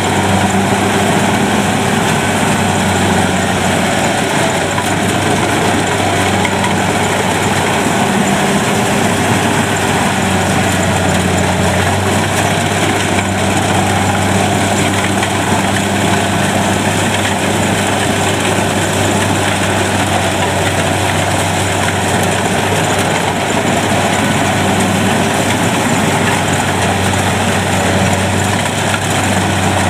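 Kubota DC70 combine harvester running steadily while it cuts rice, its diesel engine humming with a continuous clatter of cutting and threshing machinery.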